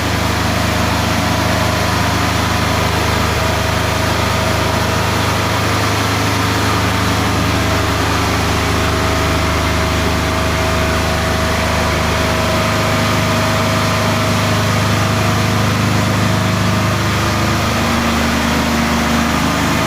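Reverse osmosis desalination unit's pump motor running, a steady low machine hum with a faint higher whine over it.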